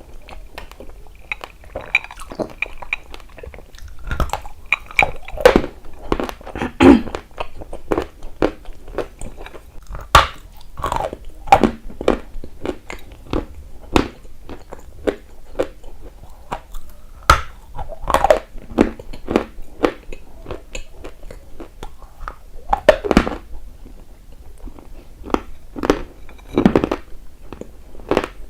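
Close-miked biting and chewing of dry, chalky lumps: a run of sharp, irregular crunches, some of them much louder bites.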